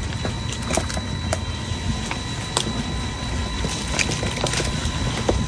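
Live climbing perch flapping and knocking in a basin: irregular sharp taps and clicks over a steady low rumble.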